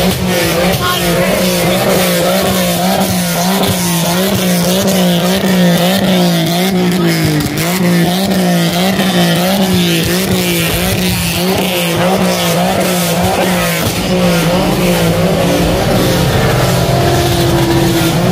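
A car engine held at high revs, its pitch wavering rapidly up and down without letting off, with tyres squealing as the car spins its wheels on the pavement.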